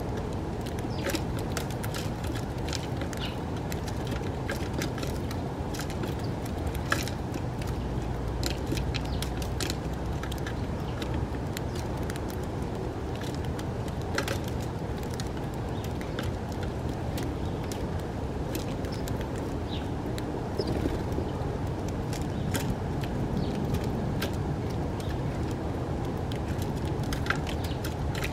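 House sparrows at a seed feeder, giving scattered short chirps and clicks over a steady low background rumble.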